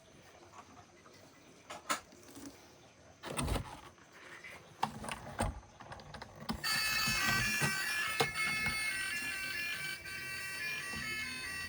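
A few knocks and thumps of toys being handled, then, about two-thirds of the way in, an electronic melody of short stepped beeping notes starts and keeps going.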